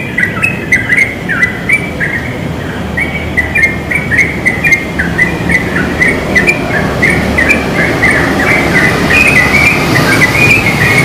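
Yellow-vented bulbul singing a fast, continuous run of short bubbly notes that slide up and down. A low rumble builds up under the song in the second half.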